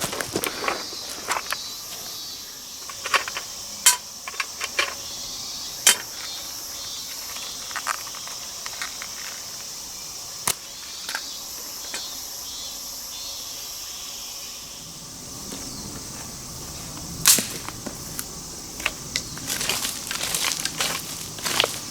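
Steady high insect chirring with irregular sharp cracks and snaps scattered over it, a few of them louder.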